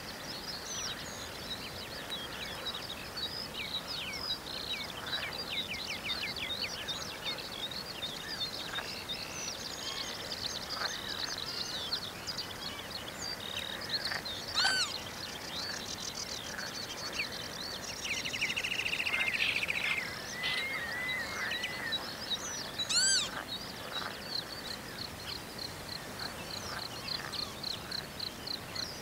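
A chorus of many birds calling and trilling over a wetland, with a mix of short chirps and rapid trills. A louder sharp call stands out about halfway through and another a little later, and a fast, even series of repeated notes runs near the end.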